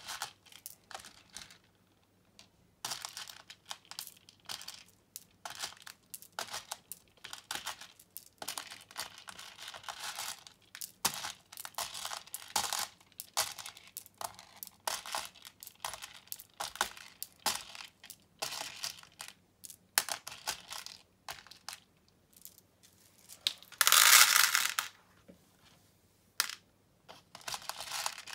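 Plastic beads clicking and rattling as handfuls are scooped from a loose pile and dropped into a plastic organizer's compartments, in short irregular bursts, with one louder rattle lasting about a second near the end.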